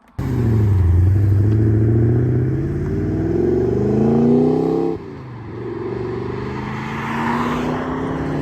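Holden 5.0-litre 304 V8 in a VS SS Commodore accelerating hard, the engine note rising steadily for about five seconds. It then drops suddenly as the manual gearbox shifts up, and the engine pulls again, rising more gently.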